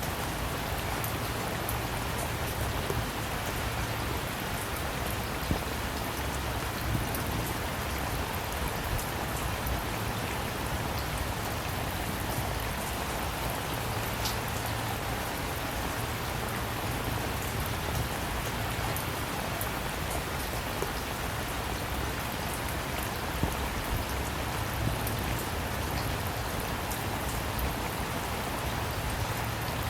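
Steady rain falling, an even hiss with many small drops ticking on a surface.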